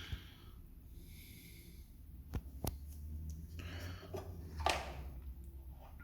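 Faint handling noise over a low steady hum: two sharp clicks a little before the middle and a few brief hissy rustles, the loudest near the end.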